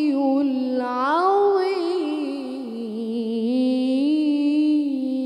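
Wordless vocal music: a single voice holding long, melismatic notes that slide up and down, without words.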